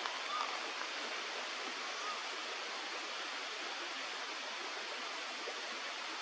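A steady hiss with two faint, brief whistled bird notes, about half a second and two seconds in.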